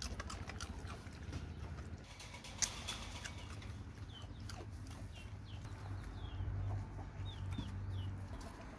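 Chicks peeping: a run of short, high, falling peeps from about four seconds in, over a low steady hum, with one sharp click about two and a half seconds in.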